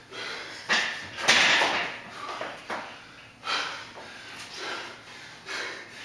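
Hard, gasping breaths of an athlete worn out near the end of a seven-minute all-out workout of thrusters and chest-to-bar pull-ups, about one a second. Knocks and rattles come from the steel pull-up rig as he kips on the bar.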